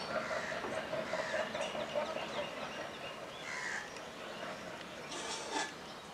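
Crows cawing a few times, the sharpest calls about five seconds in, over the steady hum of a passenger train running away into the distance and slowly fading.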